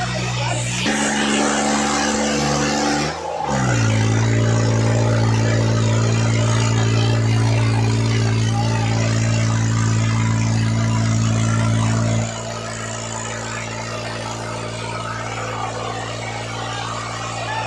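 New Holland tractor's diesel engine running hard at high, steady revs while pulling a train of loaded trolleys. The revs dip and climb again about three seconds in. About twelve seconds in the note drops suddenly and the engine runs on quieter.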